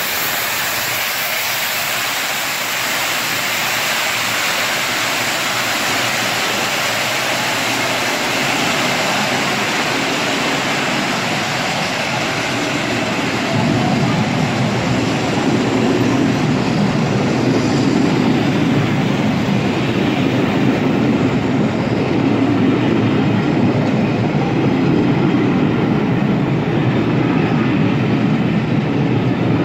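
Coaches of a steam-hauled passenger train rushing past close by, wheels running on the rails with a steady rushing noise. About a third of the way through the sound becomes louder and deeper as a second train's coaches roll through a covered station.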